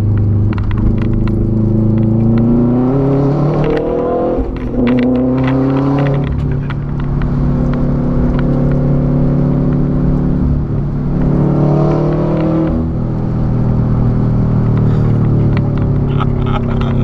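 2006 Subaru WRX's turbocharged flat-four, running with the muffler removed, loud as it pulls. The exhaust note climbs in pitch and drops sharply twice, about four and six seconds in, like upshifts. It then holds steady, climbs again and drops near the end, with scattered crackles throughout.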